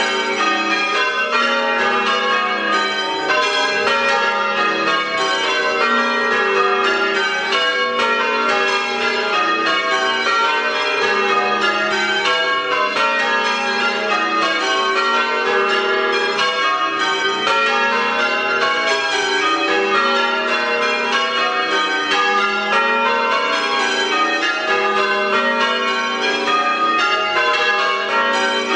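Church bells change ringing a method on eight bells (Major): a continuous, even run of bell strikes with no pause, the bells ringing on over one another.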